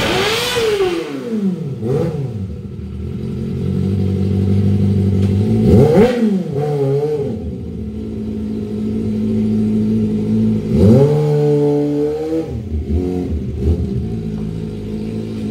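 Kawasaki ZX-25R's 250 cc inline-four engine being revved in quick throttle blips, settling to a steady idle in between. One rev past the middle is held for about a second before it drops, followed by a couple of short blips.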